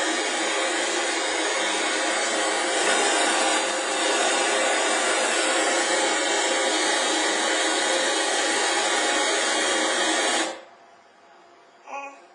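Steady hiss of white noise that cuts off abruptly about ten and a half seconds in. A brief faint sound follows near the end.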